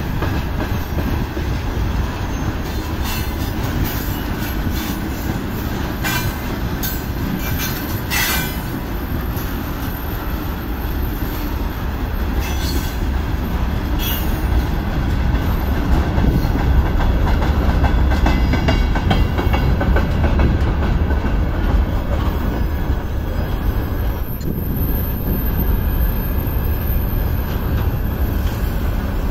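Freight train of open gondola wagons rolling past: a steady heavy rumble of wheels on the rails, with a few sharp, high metallic clanks and screeches in the first half.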